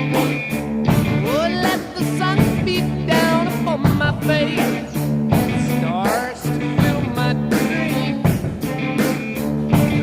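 Rock music with guitar, a steady beat and a bending lead line that could be voice or guitar.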